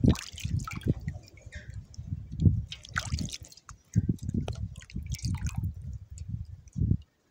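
Water dripping and splashing into a metal bowl as wet hands squeeze and turn a chicken gizzard, in irregular small splashes and ticks. Uneven low bumps run underneath and drop out briefly near the end.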